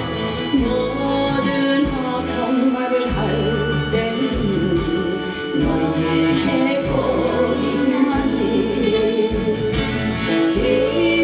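A gospel song being performed: singing over instrumental accompaniment with sustained low bass notes.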